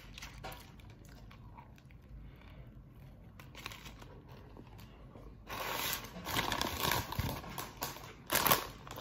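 Close-up chewing of a sandwich, then from about five and a half seconds in, loud rustling and crinkling of paper napkins and packaging, loudest near the end.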